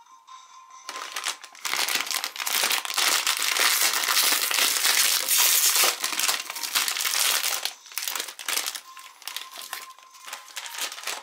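Plastic snack-cake wrapper being torn open and handled: loud crinkling from about a second in, easing to lighter, scattered rustles after about eight seconds.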